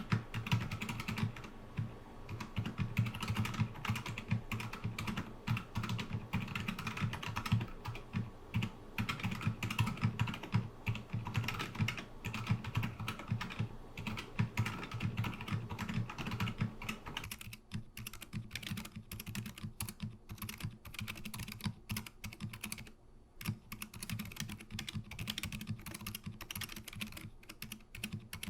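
Steady, fast typing on a mechanical keyboard fitted with stock FEKER Aphonia silent switches: a dense run of soft, muted keystroke clicks. About two-thirds of the way through, the typing turns thinner and quieter.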